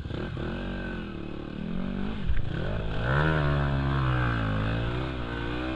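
Dirt bike engine running under a helmet camera, its pitch rising and falling with the throttle while it rides through mud and puddles. There is a single sharp knock about two seconds in, and the engine is louder and revs harder from about three seconds in.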